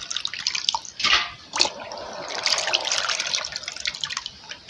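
Washed beans and water being poured into a sieve, with splashing and water draining and dripping through, and a couple of sharper splashes about a second in.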